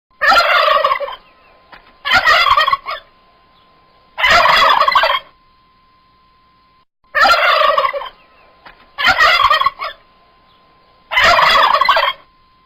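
Turkey gobbling: six gobbles of about a second each, roughly two seconds apart, in two runs of three with a longer pause midway. A faint steady tone hangs in the gaps.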